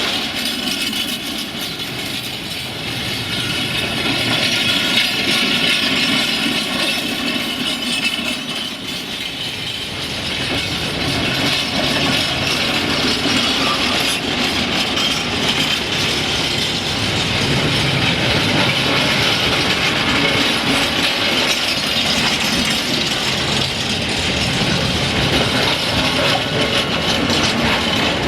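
A train moving along the track through the station, its wheels clicking over the rail joints with a continuous rumble. A high ringing rides on top in the first several seconds.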